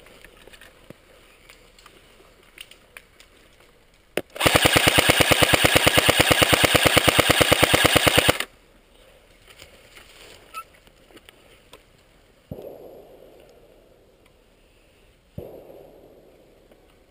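An airsoft electric gun fires one sustained full-auto burst of about four seconds, at roughly a dozen shots a second, loud and close. Two duller thuds follow later.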